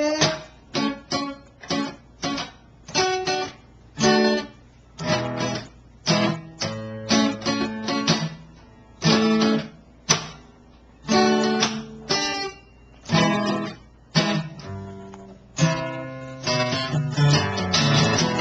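Acoustic guitar strummed in short, choppy chords with brief silences between them, the instrumental close of a song. Near the end it breaks into faster continuous strumming that stops suddenly.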